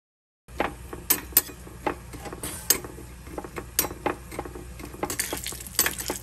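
A steel spoon clinking and scraping against a small iron kadai as cashews are stirred and fried in oil. The irregular sharp clinks, several a second, sit over a low steady hiss and start about half a second in, after a moment of silence.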